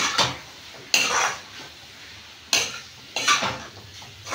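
A long metal spatula scraping and stirring chunks of bottle gourd curry around a metal kadhai. There are four scrapes, each sharp at the start and then fading, with short gaps between them.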